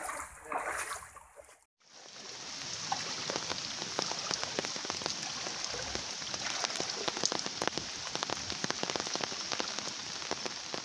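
Rain falling steadily on floodwater, a dense hiss of countless fine drops. It begins after a sudden cut about two seconds in; before that there is a short stretch of voices and outdoor noise.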